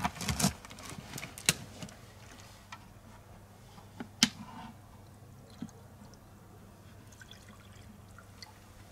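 Water poured from a plastic bottle into a plastic pigeon drinker, a faint trickle and drip. There are a few sharp knocks near the start and a single louder knock about four seconds in.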